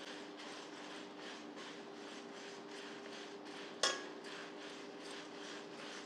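Whole dried red chillies and coriander seeds being stirred and tossed in a dry aluminium kadai with a metal slotted spoon while they dry-roast. It makes a rhythmic dry scraping and rustling, with one sharp clink of the spoon against the pan about four seconds in, over a low steady hum.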